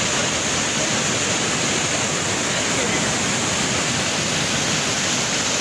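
Steady rushing of a muddy river in flood after heavy rain, its churning water making an even, unbroken noise. The flow is still rising.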